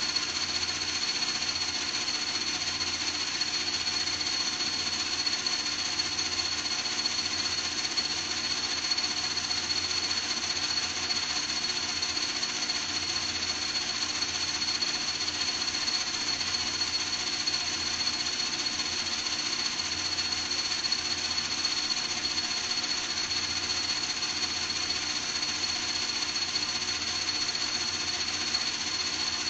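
A small motor running steadily, with a high, even whine over a fast rattle that never changes speed.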